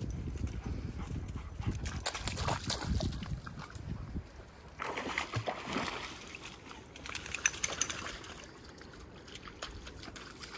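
Sloshing and splashing in shallow water, in a few uneven bouts.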